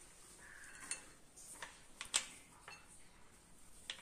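A spoon scraping and tapping against a blender jar and bowl while coarsely ground almonds and cashews are transferred: a short scrape near the start, then several sharp clinks and taps.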